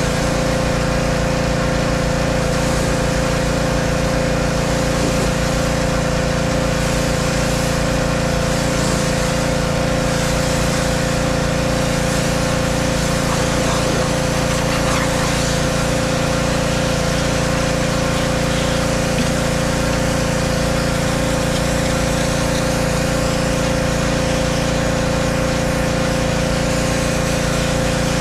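Pressure washer running steadily, an unbroken motor-and-pump drone with a constant pitched hum, its water jet spraying down a semi truck.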